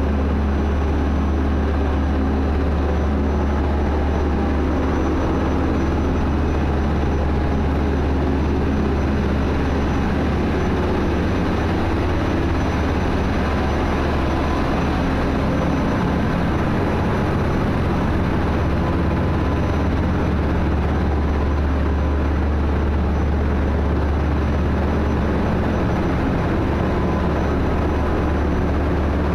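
Ship engine-room machinery running on a tanker: a loud, steady drone with a strong low hum under a dense mechanical noise and several steady tones.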